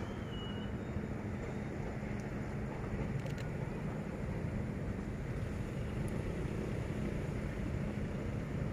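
D11H diesel-hydraulic locomotive running steadily as it rolls slowly downhill on the rails, a low, even drone heard from the locomotive's front.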